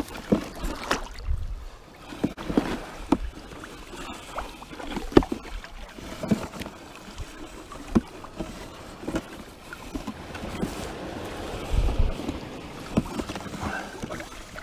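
Shallow water sloshing and lapping around people wading a bait drag net, with scattered small knocks and a couple of low thumps.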